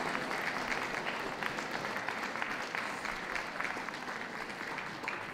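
Audience applauding, many hands clapping at once, easing off slightly toward the end.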